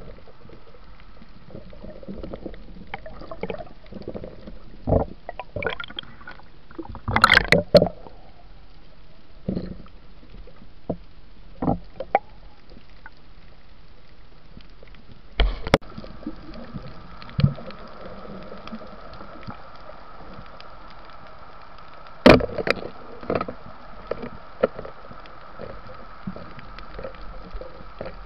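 Underwater sound picked up by a diver's camera: a steady wash of water noise with scattered sharp knocks and clicks, loudest in a cluster about seven seconds in and again at two single hits later on.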